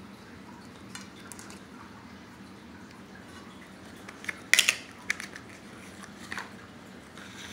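Slime being handled: a few sharp clicks and crackles, with the loudest cluster about four and a half seconds in.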